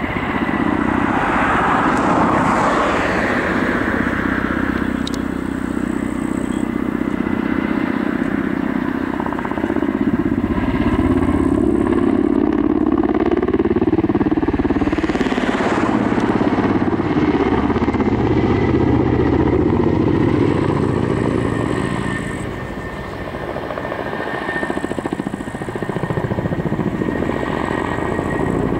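Kamov Ka-52 attack helicopter in flight: a loud, steady drone from its coaxial rotors and twin turboshaft engines, with a thin high whine running over it. The sound eases briefly about three-quarters of the way through, then comes back.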